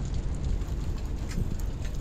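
Steady low rumble with wind buffeting the microphone, and a few faint clicks.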